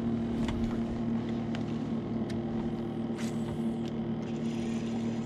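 Electric trolling motor humming at a steady pitch, holding the boat in place, with a few faint clicks over it.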